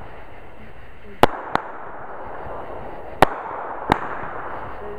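Consumer fireworks shots going off: four sharp pops in two close pairs, the first pair about a second in and the second about three seconds in, over a steady hiss.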